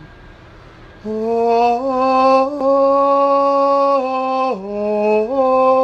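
Slow choral chant: a choir sings long held notes that step up and down by small intervals, starting about a second in after a brief quieter gap.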